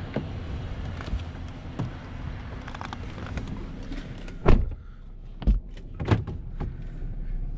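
Red pickup truck's driver door shut with one loud thump about four and a half seconds in, after which the outside noise is muffled, followed by two smaller knocks inside the cab. A steady low hum runs underneath.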